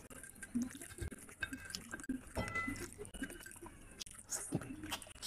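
Close-miked eating sounds: wet chewing and many small sharp clicks and ticks as fingers pick apart a curried fish head on a plate.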